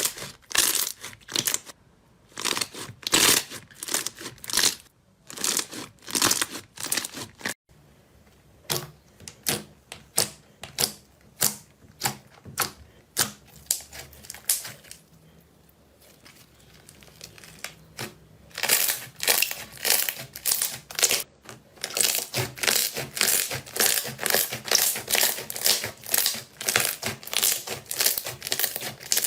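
Slime being squished and poked by hand, giving repeated crackly, sticky squelches in short bursts that become a fast, regular run near the end.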